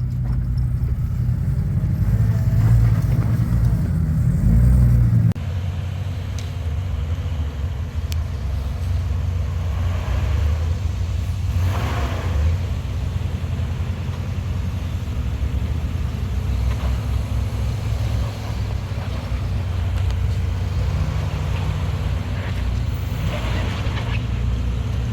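Off-road rig's engine running low and steady as it crawls over rocks. The sound changes abruptly about five seconds in.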